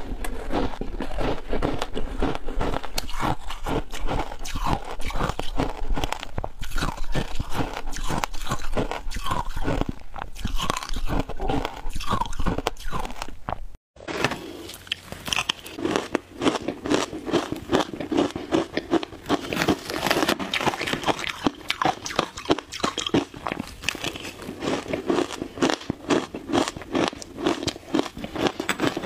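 Close-miked crunching and chewing of frozen shaved ice, dense rapid crunches with no let-up, broken once about halfway through by a sudden brief drop-out.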